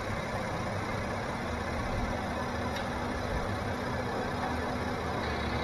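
Mercedes-Benz E-Class sedan's engine idling steadily, a low even hum with no change in speed.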